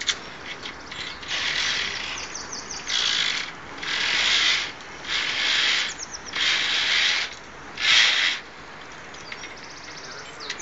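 Carabiners scraping along a via ferrata's steel lifeline cable in a run of short rasping bursts, about one a second, with brief rattles of rapid clicks between them.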